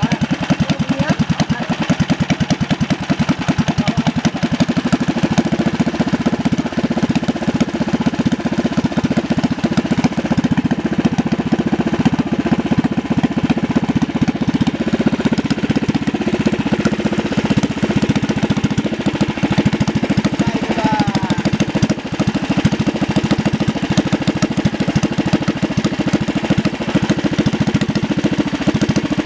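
Small ketinting longtail-boat engine running steadily with a fast, even firing rhythm, during an engine test.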